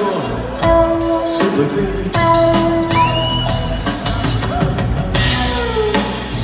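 Live rock trio playing: electric guitar over upright bass and drum kit, with sustained, sliding guitar or vocal lines on top.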